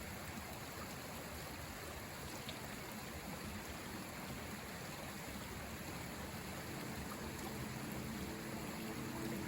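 River water rushing and burbling with a steady, even noise. Faint low steady tones come in near the end.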